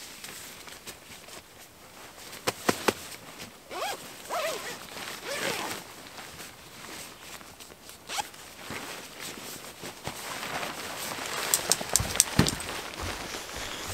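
A zipper being pulled in several runs, with a few sharp clicks in between.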